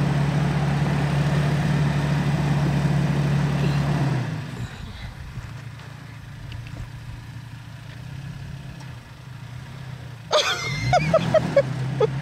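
2020 Toyota Tacoma pickup's engine running steadily under load for about four seconds, then dropping away to a low rumble. Near the end a voice cries out loudly in several short bursts.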